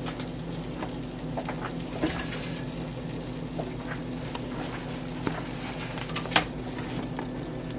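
Butter sizzling in hot frying grease in a pan: a steady hiss with scattered crackling pops, a few of them louder.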